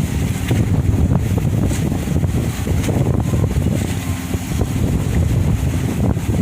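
A ferry's engines running steadily as a low hum, with strong wind buffeting the microphone in uneven gusts.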